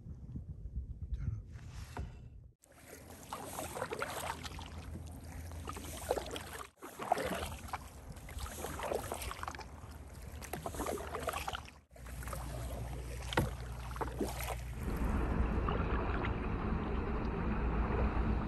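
Kayak paddle strokes: the blades repeatedly dip and splash in the water, with drips running off them. A steadier low rumble takes over in the last few seconds.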